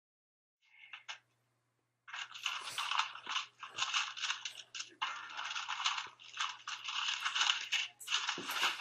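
Paper rustling and crackling, an envelope being torn open and the letter unfolded, with a faint steady hum underneath.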